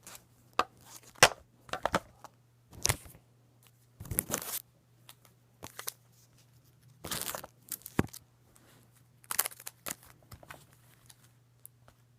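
Hands handling trading cards and their plastic packaging: short, irregular crinkles and rustles with a few sharp clicks.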